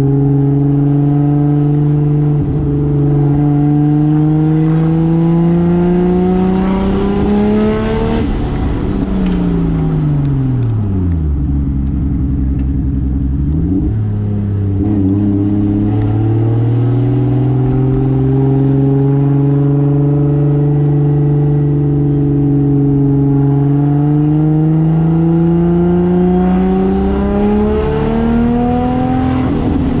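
A 1995 Toyota Soarer's single-turbo 2JZ straight-six, heard from inside the cabin while driving. The engine pitch climbs for the first several seconds, drops steeply as the throttle comes off and sits low for a few seconds, then steps back up and holds steady before climbing slowly again near the end.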